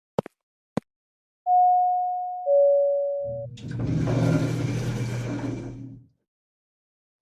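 A few sharp footstep-like clicks, then a two-note descending electronic chime, a "ding-dong" that rings and fades. A low rumbling noise follows for a few seconds and stops.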